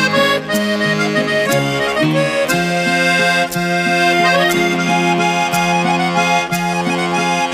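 Instrumental background music with held, sustained notes over a steady beat of about two strokes a second.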